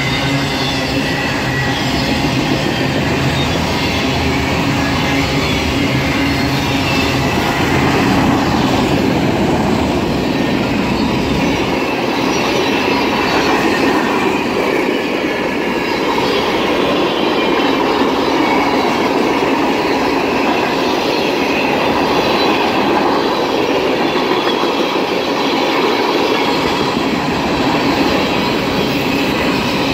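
Freight cars of a mixed train rolling past close by: steady, loud noise of steel wheels on the rails. The deepest part of the noise drops away about twelve seconds in.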